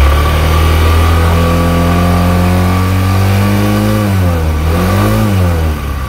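Automatic scooter engine revved on the throttle: the pitch climbs steadily for about three and a half seconds, drops, rises briefly once more about five seconds in, then falls back as the throttle is released.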